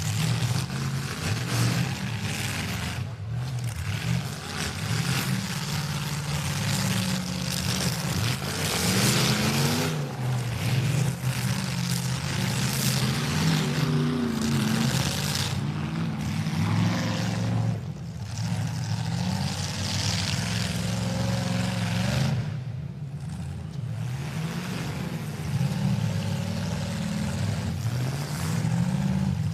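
Demolition derby cars' engines running hard and revving, their pitch rising and falling as the drivers push and back off, with brief lulls a few times.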